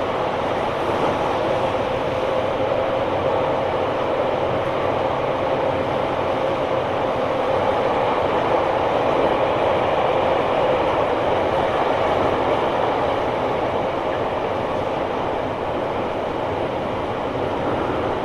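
Tobu 9000 series electric train, an armature-chopper-controlled car, running at speed with a steady rolling rumble and a steady whine. The unit's motor sound is abnormal, quite unlike a normal 9000 series: it was perhaps a trial of a different traction motor.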